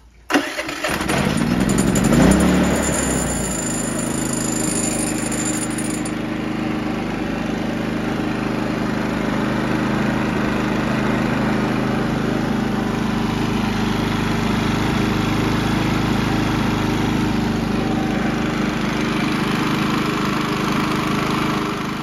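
Harbor Freight Predator 3500 inverter generator's single-cylinder engine starting. It catches about a third of a second in, rises briefly in pitch, then settles into steady, smooth running. It fires because the ignition coil now has the right gap to the flywheel magnet, so there is spark again.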